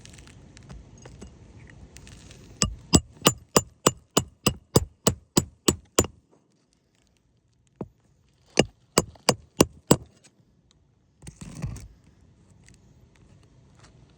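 Hammer striking metal in quick, even blows, about three a second: a run of about a dozen, a pause, then five more. A short scrape follows near the end.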